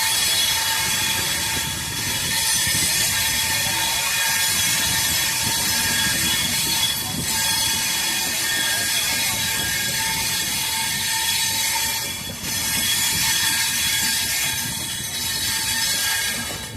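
Wheels of LHB passenger coaches squealing and grinding against the rails as the train rounds a tight curve: a steady high ring of several tones over the continuous rumble of the running train.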